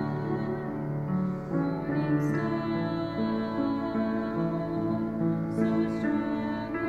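A young woman singing a slow, gentle Marian hymn solo, holding long notes, over a soft instrumental accompaniment.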